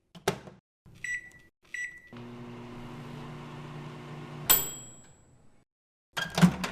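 Microwave oven: a door click, two short keypad beeps, then a steady hum for a couple of seconds that ends in a bright, ringing ding. A few clunks near the end as the door opens.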